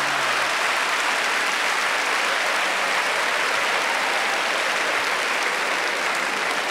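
Large audience applauding steadily, dying down a little near the end.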